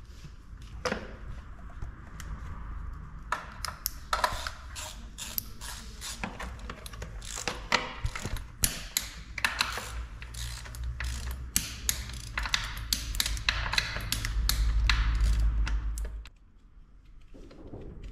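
Socket ratchet wrench worked in quick back-and-forth strokes, its pawl clicking as bolts at a motorcycle's front wheel are tightened. A low rumble swells underneath toward the end and cuts off sharply.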